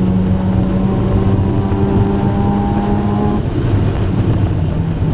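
Mazda RX-7 FD3S's rotary engine pulling under load, its note rising steadily, then dropping at a gear change about three and a half seconds in, with a faint high whine climbing along with it.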